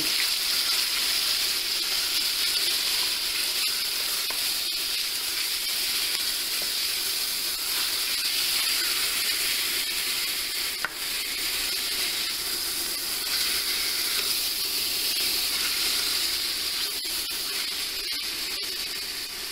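Diced raw chicken breast sizzling steadily as it fries in a stainless steel pan, stirred with a spatula, with a few scattered clicks of the utensil against the pan.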